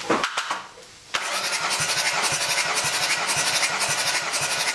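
Nissan V9X 3.0-litre V6 turbodiesel cranked over on its starter for a compression test: after a couple of clicks, a steady starter whir with an even, rapid pulsing of compression strokes begins suddenly about a second in. The cylinder under test reads 20 kg/cm², the same as the others, a sign of sound, even compression.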